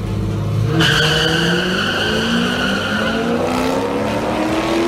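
Two cars launching in a drag race, their engines revving and rising steadily in pitch as they pull away. A high squeal, typical of tyre squeal, joins about a second in.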